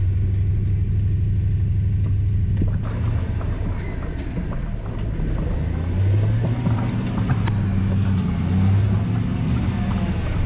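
Rock crawler buggy's engine running steadily at low revs as it crawls over rocks, with scattered clicks and knocks. The engine gets louder about six seconds in.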